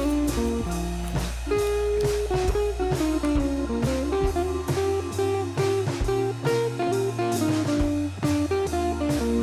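Background music: guitar playing over bass and a drum kit with a steady beat.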